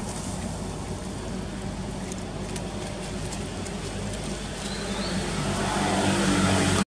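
A motor vehicle's engine running steadily off-screen, a low hum that grows louder toward the end and then cuts off suddenly.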